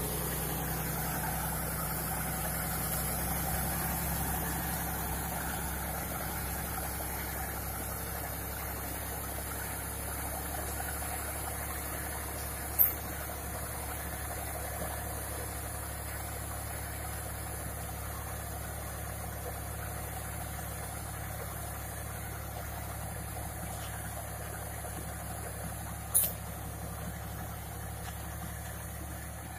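John Deere tractor's diesel engine running steadily as it pulls a mounted cultivator and spray pump, slowly getting quieter as it moves away. Two brief sharp clicks stand out, about halfway through and near the end.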